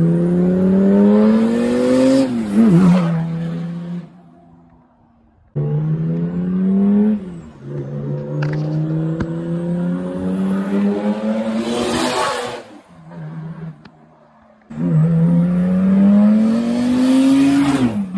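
Land Rover Discovery with a swapped-in Mercedes OM606 straight-six diesel accelerating hard toward and past three times. Each time the engine note climbs steadily and then drops in pitch as it goes by: about two and a half seconds in, about twelve seconds in, and near the end. A thin high whistle rises with the engine on each approach.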